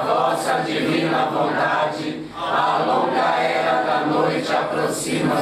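A congregation chanting a prayer in unison: a steady group recitation in phrases, with a short break for breath about two seconds in.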